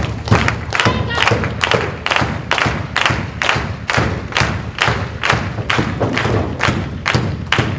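Wrestling crowd clapping in a steady rhythm, about three heavy claps a second, with a low thud to each beat.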